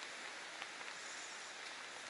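Steady hiss of rain falling, with a few faint ticks of single drops.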